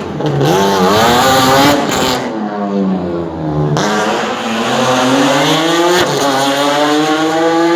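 BMW M3 E36 straight-six competition car at full throttle, the engine note climbing, dropping sharply as the driver lifts about two seconds in, then pulling back up through the revs with quick gear changes.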